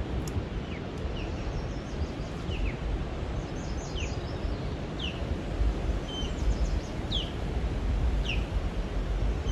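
Wind noise on the microphone, a steady low rumble, with a bird calling short falling chirps about once a second and now and then a higher twittering.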